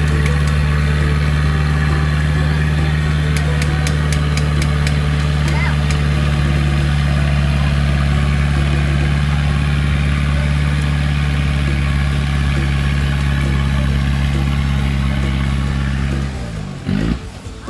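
Off-road 4x4's engine running steadily at constant speed, with a deep, even hum. About sixteen seconds in, the sound wavers in pitch and cuts off.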